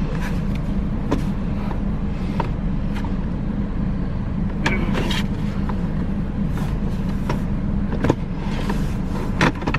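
Plastic knocks and clicks of a Cybex Cloud T infant car seat being worked onto its base, the sharpest clicks near the end, over a steady low rumble.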